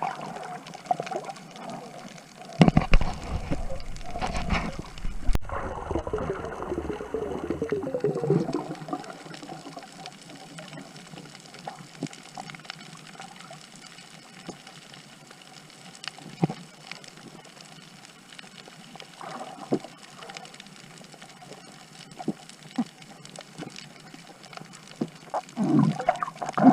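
Water splashing and gurgling around a waterproof camera, with a louder, deeper rush of bubbles a few seconds in that settles to quieter sloshing and occasional knocks.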